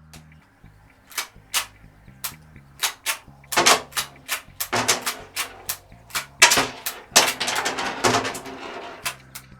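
Marushin Colt Government model gun firing caps: an irregular series of sharp cracks and metallic clacks beginning about a second in. The louder cracks have a short ringing tail, with faint background music underneath.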